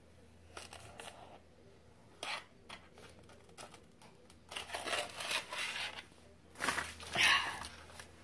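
Table knife scraping and cutting through kinetic sand in a tray, in several short scratchy bouts, the loudest near the end.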